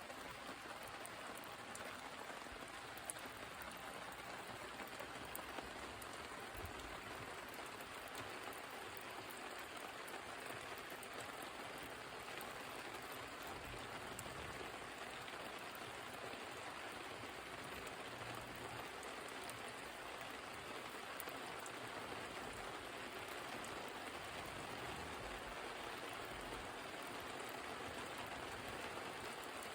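Steady rain falling, an even hiss with scattered faint sharp ticks, one standing out about three seconds in.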